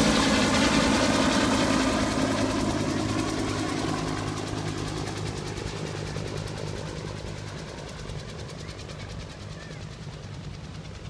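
RNZAF Bell UH-1H Iroquois helicopter flying past and away, its rotor beating over the turbine sound, fading steadily as it recedes into the distance.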